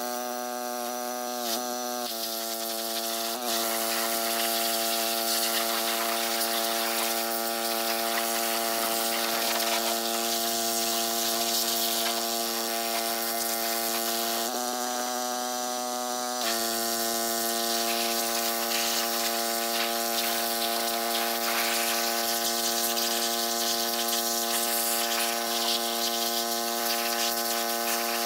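Pressure washer running with a steady motor-and-pump whine and the hiss of its water jet spraying down a lawn mower. The whine shifts slightly in pitch about two seconds in and again for a couple of seconds mid-way.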